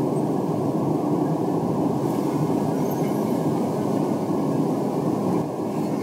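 A steady, muffled rushing noise with no clear pitch, dipping slightly near the end.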